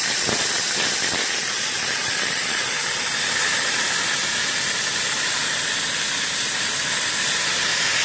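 Brass pop-off safety valves on a small fire-tube live-steam boiler blowing off steam in a steady hiss: the boiler has reached the valves' set pressure of about 80 psi and is venting through them.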